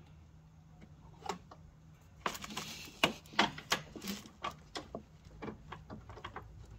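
Hands working a threaded fitting by hand on the clutch master cylinder: a brief rustle about two seconds in, then a run of small, irregular clicks and taps as the part is handled and turned.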